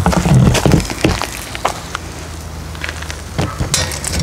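Chopped vegetables tipped from a bowl into a stainless steel pan on a grill over a wood fire: a loud tumble and clatter in the first second, then scattered crackles and clicks over a low steady hum.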